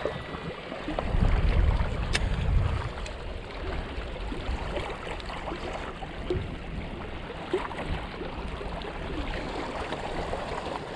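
Wind buffeting the microphone in a low rumble about one to three seconds in, over a steady outdoor hiss of wind and lapping water, with a few faint clicks.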